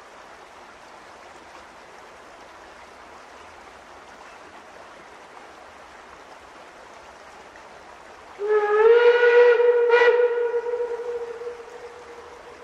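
Whistle of WW&F #9, a two-foot-gauge steam locomotive, blown in one long blast about three seconds long; its pitch rises slightly as it opens, then it fades away.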